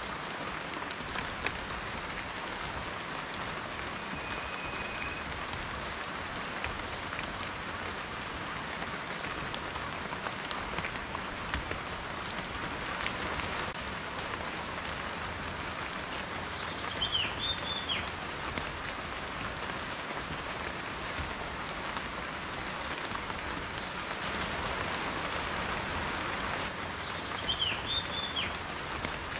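Steady rain falling, an even hiss with individual raindrops ticking on a surface. Twice, about eleven seconds apart, a short high chirp sounds above it.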